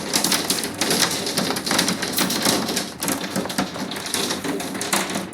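Hail pelting down: a dense, unbroken clatter of countless small impacts, steady throughout.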